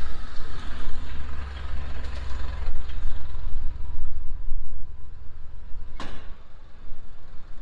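Wet city street: the low rumble of a motor vehicle with tyre hiss off the wet road, the hiss thinning after about five seconds. A brief sharp sound comes about six seconds in.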